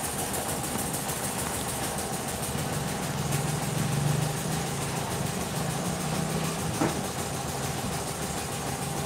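Flour mill (chakki) running with a steady drone, with a single brief click about seven seconds in.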